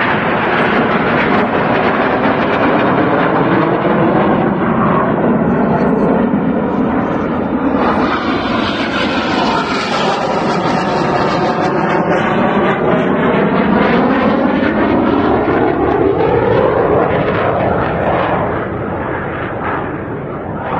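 Aermacchi MB-339 jet aircraft passing low overhead: loud, continuous jet engine noise whose tone sweeps slowly as they pass, easing off slightly near the end.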